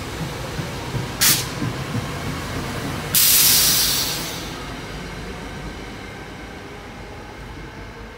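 SEPTA Silverliner IV electric multiple-unit train rumbling along the rails as it pulls away, fading slowly near the end. A short sharp hiss sounds about a second in, and a louder hiss starts suddenly about three seconds in and tapers off over a second or so.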